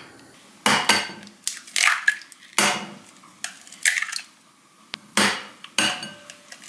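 Eggs cracked one after another against a glass bowl: a series of sharp taps and cracks of shell on glass.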